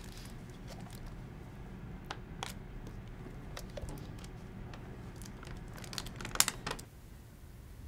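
Small handling noises: scattered light clicks and crinkling as hands fiddle with a small object, with a louder cluster of clicks near the end, over a steady low room hum.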